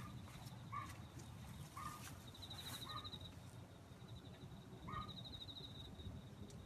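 A cat making short, bark-like calls in imitation of a dog's bark, about a second apart, then one more after a longer gap. A high, fast trill sounds twice in the background.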